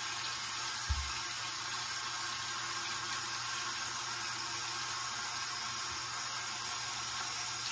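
Bathroom sink tap running steadily, an even hiss of flowing water, with a brief low bump about a second in.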